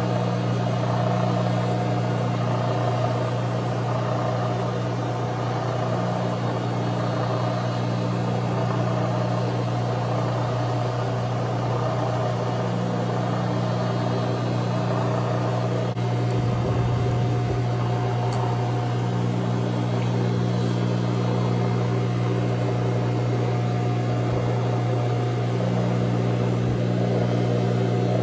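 Milling machine running with a steady electric motor hum, during drilling and tapping of holes in steel plate.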